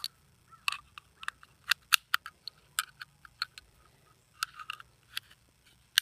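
Brass .300 WSM cartridges being pressed one by one into a Browning BLR's detachable box magazine: a string of sharp, irregular clicks and snaps as the rounds push down past the feed lips against the spring.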